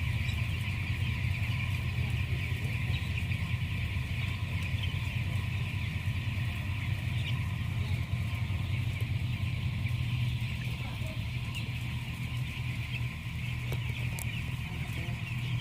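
A flock of week-old broiler chicks peeping all at once in a dense, continuous chatter, over a steady low machine hum.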